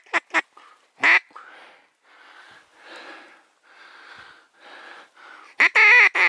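Duck quacking loudly: one quack about a second in and a run of quacks near the end, with a few short clipped notes. In between, softer swishing of waders pushing through marsh grass and water.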